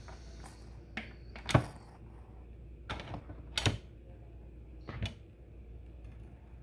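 Electric pressure cooker lid being twisted and lifted off: a series of about five plastic and metal clicks and clunks, the loudest about a second and a half in. A faint steam hiss from the exhaust valve dies away at the start.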